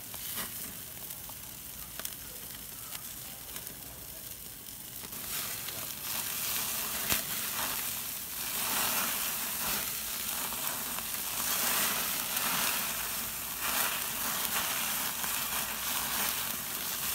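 Hamburger patties sizzling on a grill grate over open flames, with a few sharp pops. The sizzle grows louder about five seconds in as the flames rise around the patties.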